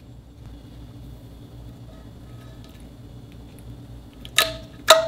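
Clear slime squeezed and folded by hands, giving two sharp, loud pops of trapped air near the end, each with a brief ringing tone. Before that only a faint low hum.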